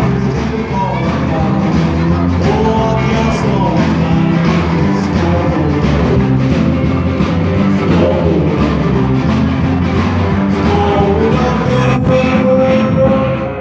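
A live rock band playing, with a singer over guitar and a steady low bass line.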